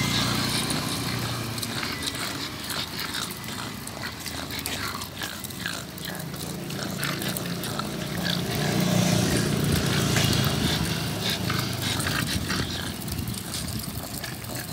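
Pugs panting in short, rapid breaths, over the light rattle of a pet stroller rolling on pavement.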